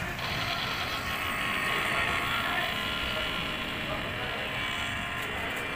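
A small electric motor running steadily, a level whirring hiss with no breaks.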